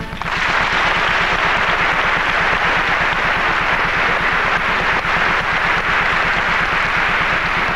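Theatre audience applauding the end of a ballet dance: a steady, even wash of hand clapping that starts as soon as the orchestra stops.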